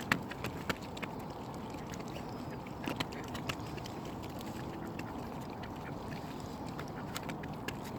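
Mallard ducks and mute swans crowding in for bread: ducks quacking, with many irregular sharp clicks of bills snapping and pecking at food.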